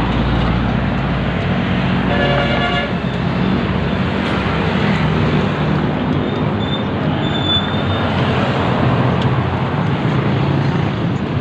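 Steady road traffic passing alongside, with a single short vehicle horn toot about two seconds in.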